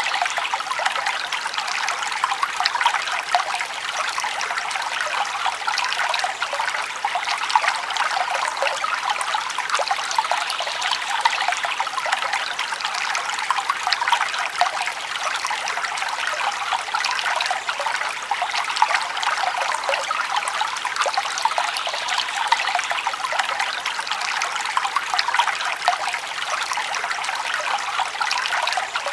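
Forest stream babbling and trickling over stones, a steady bright splashing with no let-up.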